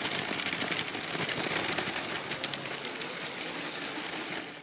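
Lego City toy train running on its plastic track: a steady mechanical whir from the motor with rapid, even clicking and rattling from the wheels and track.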